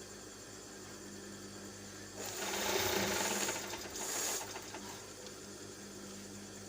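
A person blowing their nose hard: one long blow lasting about a second and a half, then a shorter second blow, over a steady low hum.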